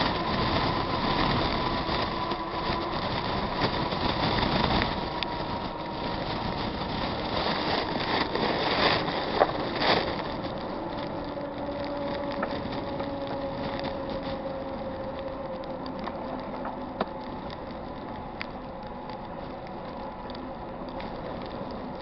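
Steady rumbling noise with faint humming tones that slowly fades, broken by two sharp knocks about nine and ten seconds in.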